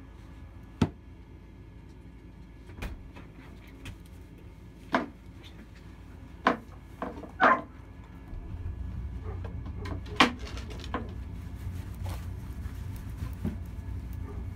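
Scattered sharp wooden knocks and taps, about seven at irregular intervals, the loudest about a second in, near the middle and a little past two thirds of the way. A low steady rumble sets in a little past halfway.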